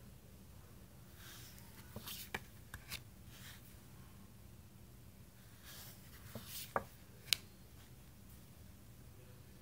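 Tarot cards handled in a flip-through: two clusters of soft swishes as cards slide against each other, each ending in light sharp clicks as a card is laid down on the pile.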